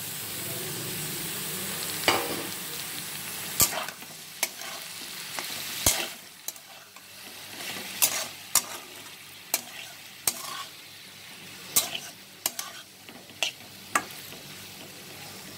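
Potato sticks and freshly added chopped tomatoes sizzling in hot oil in a metal wok, stirred with a metal spatula that clicks and scrapes against the pan. The sizzle is loudest for the first few seconds, then settles to a softer frying hiss under irregular sharp spatula clicks.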